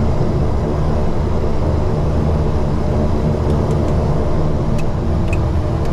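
The BAe Jetstream 32's twin Garrett TPE331 turboprop engines run steadily, heard inside the cockpit as a loud, even drone. A few faint clicks come in the second half as switches on the overhead panel are flipped.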